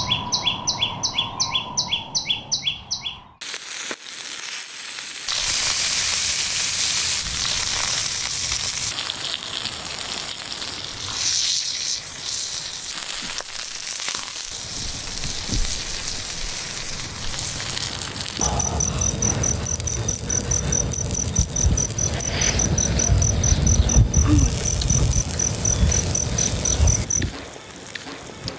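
Crickets chirping in a steady high pulse, about four to five a second, over bursts of hissing and low crackling from food cooking on a hot stone griddle over embers. There are rapid, evenly spaced chirps at the start.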